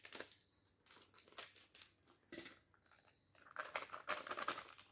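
Plastic packet of cornstarch crinkling and rustling in irregular bursts as it is squeezed and shaken empty over a bowl of flour, busier in the second half.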